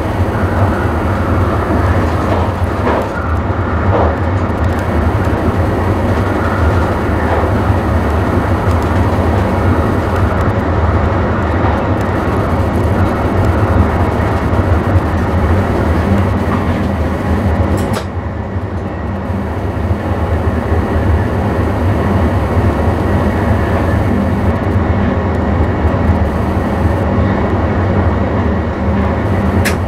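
Electric passenger train running along the line, heard from inside the driver's cab: a steady low hum with running noise over it, and a sharp click about eighteen seconds in and another near the end.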